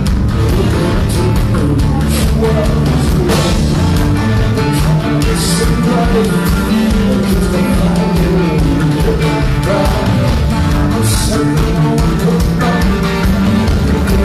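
Rock band playing a song live, loud and continuous, with guitar and a heavy low end.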